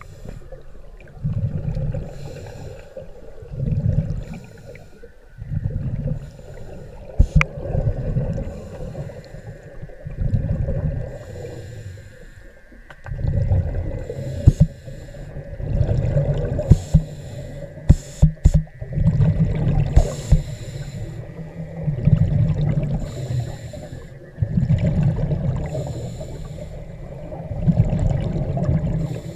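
Scuba diver breathing through a regulator underwater: exhaled bubbles come in loud bursts every two to three seconds, with quieter breaths between. A few sharp clicks of gear, mostly near the middle.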